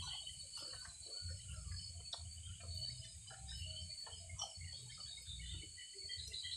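Steady high-pitched chorus of night insects trilling, with scattered light clicks and rustles of hands handling food and utensils close by.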